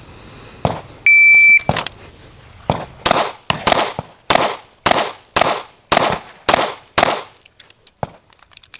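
A shot timer's start beep, then a string of about ten 9mm pistol shots at roughly two a second, stopping about seven seconds in, where the shooter runs out of rounds without having planned a reload.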